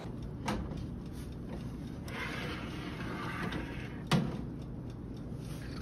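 Baking tray being drawn out of a countertop electric oven over a low steady hum: a scraping slide along the rack and a sharp metal clack about four seconds in.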